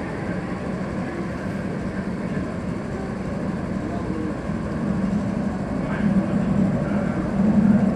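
MTR Kwun Tong Line train running away into the tunnel after leaving the platform, a steady rumble of wheels and motors that does not fade and grows slightly louder in the last few seconds.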